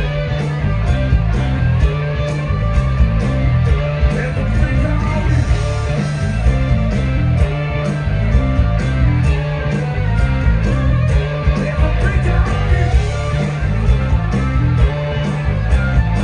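Live blues-rock band playing loudly: electric guitars, including a Les Paul-style guitar, over bass and a steady drum beat, with a man singing.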